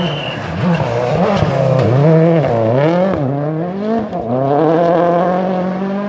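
Rally car engine running hard, its note dropping and climbing again several times in quick succession as the driver lifts off and shifts, ending on a long steady climb.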